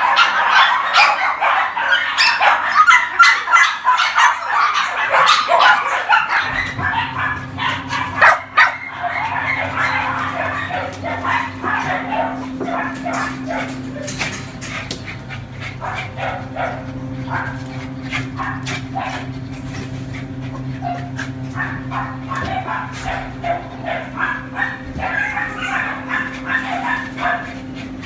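Many dogs in kennel pens barking and yipping over one another, densest and loudest in the first several seconds, then thinning. A steady low hum starts about six seconds in and continues under the barking.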